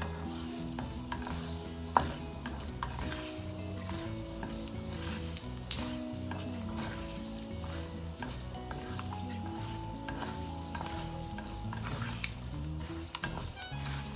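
Oil sizzling in a kadai as urad dal, mustard seeds and cashews fry for a tempering, stirred with a ladle, with a few sharp clicks standing out over the steady sizzle.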